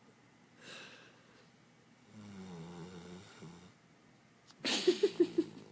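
Labrador puppy snoring in its sleep: a soft breathy puff, then a rattly snore about two seconds in lasting a second and a half, and near the end a louder, breathy snort that sputters in about four quick pulses.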